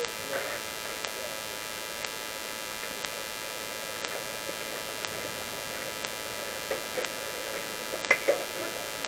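Steady electrical hiss and hum on the recording, with faint ticks about once a second and one sharp click about 8 seconds in.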